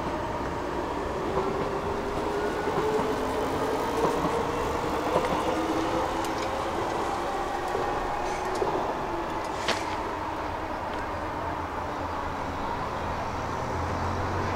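Electric train running, a whine from its motors slowly rising in pitch as it gathers speed, over a steady rumble. A single sharp click about ten seconds in.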